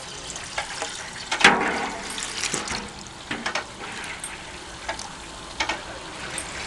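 Water splashing and gushing out in irregular surges, the strongest about a second and a half in: a Tokai Kikai New Hope MT-50 mortar pump being test-run on water, discharging it.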